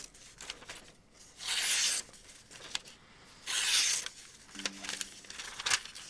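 A sharp slip-joint knife's thin N690 blade slicing through glossy catalog paper in two long strokes about two seconds apart, each about half a second, with light paper rustling between them. The smooth cuts are the sign of a keen factory edge.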